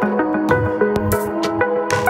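Downtempo psybient electronic music: synthesizer notes stepping through a melody over a steady beat of drum hits.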